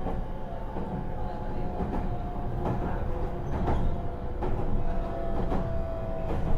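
Inside the car of a Meitetsu 3700 series train under way, its Toyo Denki GTO VVVF inverter sounding as several steady tones over the running rumble, with repeated knocks from the wheels. The inverter noise is unusually loud for this car, which the uploader counts as abnormal.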